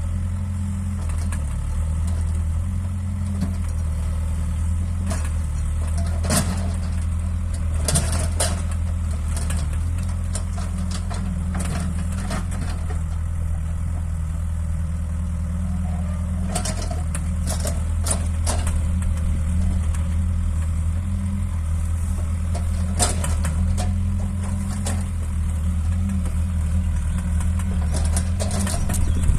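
Excavator's diesel engine running steadily, with a handful of sharp knocks scattered through it.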